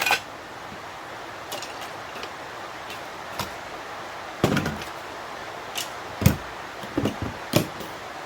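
Several sharp knocks and clicks, about half a dozen, from small parts and tools being handled and set down during dismantling. The loudest come about four and a half and six seconds in, over a steady background hiss.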